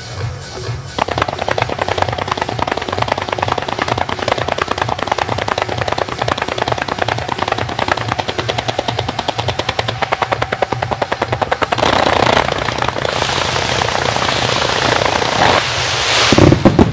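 Aerial fireworks going off in a rapid-fire barrage: a fast run of sharp bangs, many a second, starts about a second in, gives way to dense crackling near the end, and a single loud boom comes just before the end.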